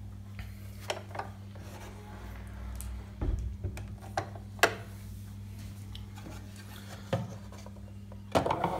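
Hands handling the plastic body of a Singer Heavy Duty 4423 sewing machine: rubbing, with a few scattered clicks and knocks, over a faint steady low hum.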